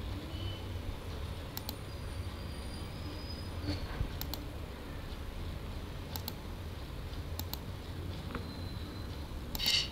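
Computer mouse clicks, each a quick press-and-release pair, coming a couple of seconds apart over a low steady hum and hiss, with a brief hiss near the end.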